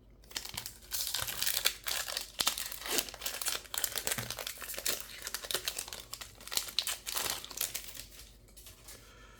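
A foil booster-pack wrapper being torn open and crinkled in the hands, a dense run of crackling that fades near the end.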